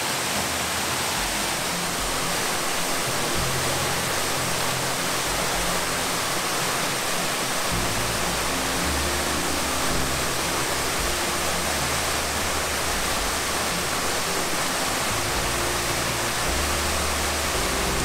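Steady rushing of a waterfall, with soft background music of low held notes that change every few seconds underneath.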